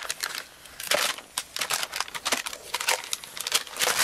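Protective plastic film being peeled slowly off an acrylic sheet, crackling and crinkling in quick irregular bursts as it lifts away.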